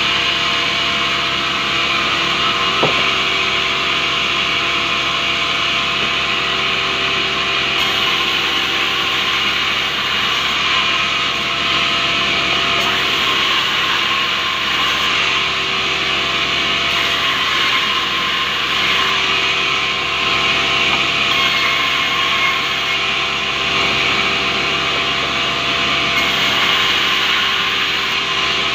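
Vertical band saw running steadily as it rips a rubberwood log lengthwise into boards: a loud, even hiss of the blade in the wood over the hum of the machine. One brief knock about three seconds in.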